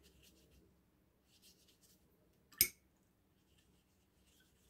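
Soft, faint scratching of a wet watercolour brush being worked over cold-press paper as water is laid on, with one sharp click about two and a half seconds in.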